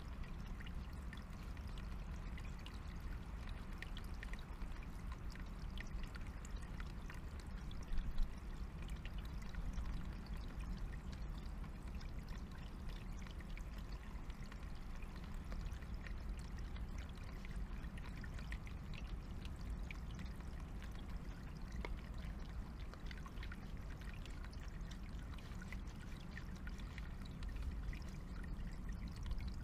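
Small forest stream trickling steadily over stones, with a brief louder knock about eight seconds in.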